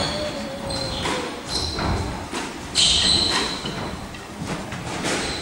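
Squash rally: the ball is struck by rackets and smacks off the court walls several times, the loudest hit almost three seconds in, with shoes squeaking on the wooden court floor between the shots.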